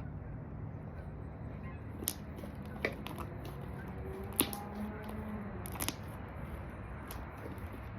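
Slime being squeezed and worked by hand, giving a few sharp clicks and pops over a steady low hum.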